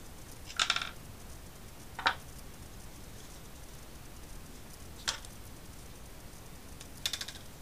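Handling noises from a bare 3.5-inch Seagate desktop hard drive: four short clicks and clatters. The first and last are quick rattles of several taps, and the two between are single sharp clicks.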